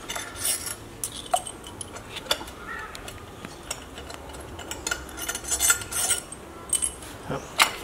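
Metal hand tools and engine parts clinking and scraping as they are worked loose from the top of a BMW B48 engine. The light metallic clinks come irregularly, bunched around the middle, with one sharper clink near the end.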